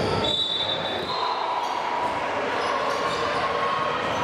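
Basketball game sounds in a gym hall: a ball bouncing over a steady wash of crowd and court noise. A brief high tone comes about half a second in.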